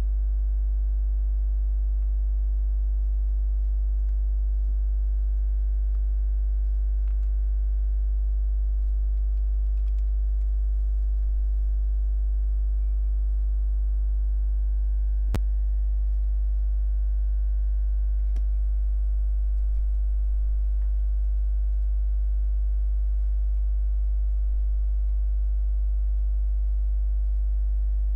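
Steady low electrical mains hum with a ladder of higher overtones, unchanging throughout. A single faint click about fifteen seconds in.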